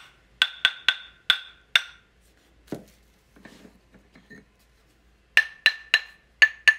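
Cocobolo turning blanks tapped, each tap a sharp knock that rings briefly at a clear note. There are about five quick taps, a pause with some light handling, then about five more at a slightly higher note. The pitch of the ring shows the density of each dense hardwood blank.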